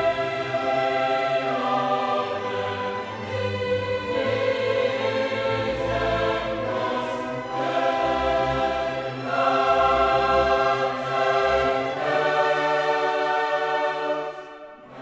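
Background classical music: a choir singing long held chords with an orchestra, dipping briefly near the end.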